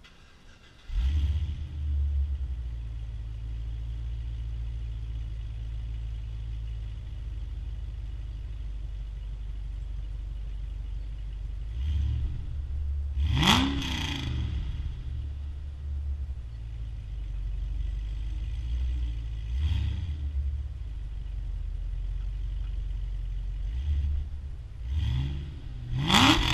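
2011 Cadillac CTS-V's supercharged 6.2-litre V8, fitted with headers and with its exhaust cutouts closed, starting about a second in and settling into a low, steady idle. It is revved hard once around halfway, blipped lightly a few seconds later, and revved hard again near the end.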